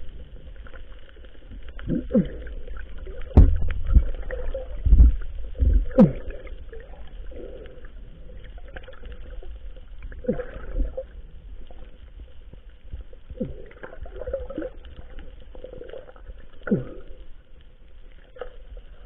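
Muffled underwater sounds recorded on a small action camera in its waterproof housing: a few dull thumps and knocks a few seconds in, and short gurgling sounds that slide down in pitch every few seconds.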